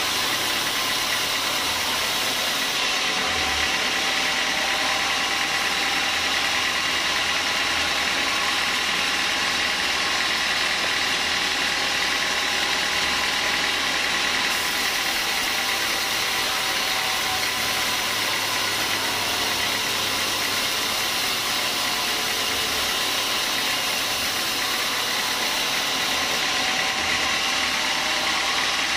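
Band sawmill cutting lengthwise through a squared beam of hard small-leaf acacia wood, the blade running steadily through the cut. It makes a constant, even hiss with a faint steady whine.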